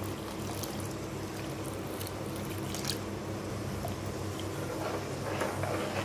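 A metal spoon stirring thick, simmering curry gravy in a metal kadai, with soft wet squelching and a few faint scrapes against the pan, over a steady low hum.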